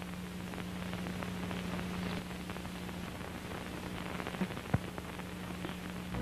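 Steady static hiss with scattered crackles and a low, even hum, with one sharper click about three-quarters of the way in.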